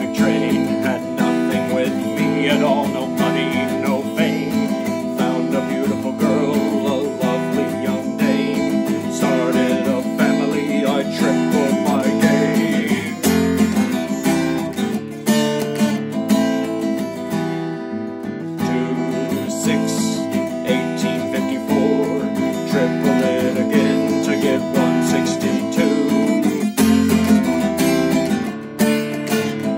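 Acoustic guitar strummed steadily, playing chord changes as the accompaniment to a song.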